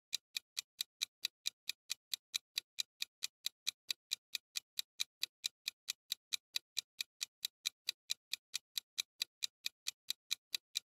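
Ticking-clock sound effect for a countdown timer: sharp, even ticks at about four a second, counting down the time left to answer.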